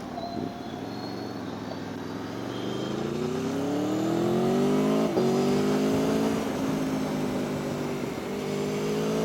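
Aprilia Tuono V4 motorcycle engine heard while riding, pulling hard with rising pitch. It makes a quick upshift about five seconds in, eases off, then pulls again near the end, over a steady rush of wind.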